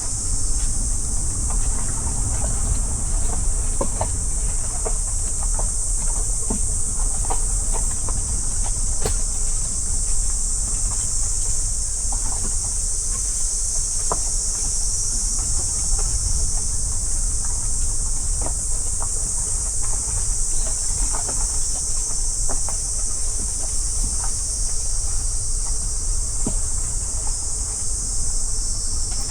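Steady high-pitched insect chorus over a low rumble from the moving car.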